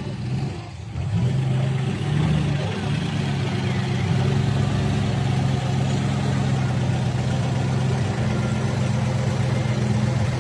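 Engine of a vintage army truck running steadily at low revs with a low, even drone. It grows louder about a second in as the truck draws close.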